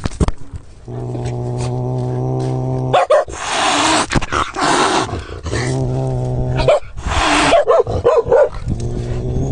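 Cat growling in long, low, held growls, broken by sharp hisses, with a wavering yowl near the end: an angry, defensive cat in a standoff.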